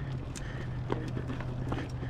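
Mountain bike rattling over a rough dirt trail: irregular clicks and knocks from the bike jolting over the ground, over a steady low hum.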